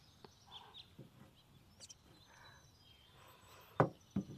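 Quiet room ambience with faint bird chirps, broken by a sharp knock a little before the end and a softer one just after it.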